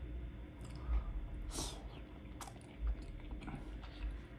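Close-miked chewing of a sauce-coated boiled egg: soft, wet mouth sounds with irregular small smacks and clicks.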